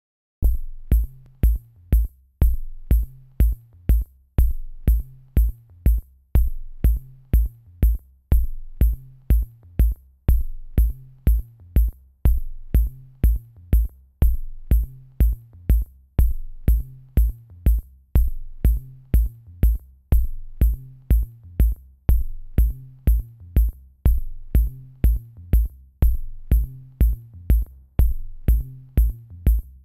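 Electronic background music with a steady drum-machine beat of deep kick drums and crisp high ticks, starting about half a second in.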